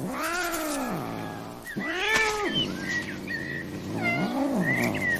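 A cat meowing: three long, drawn-out calls, each rising and then falling in pitch.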